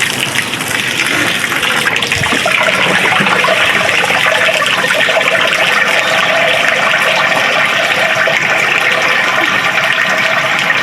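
Water running in a steady, continuous gush, as for rinsing a goat hide during tanning.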